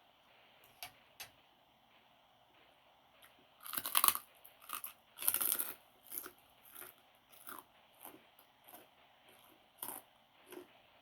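Close-miked biting and chewing of crunchy food: two loud crunching bites about four and five and a half seconds in, then a run of shorter chewing crunches every half second or so.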